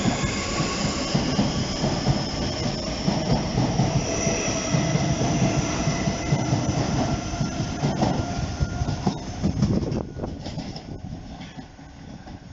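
Southeastern Networker electric multiple unit running past the platform: a low rumble and clatter of wheels on the rails with a high whine above. It fades away over the last couple of seconds as the end of the train goes by.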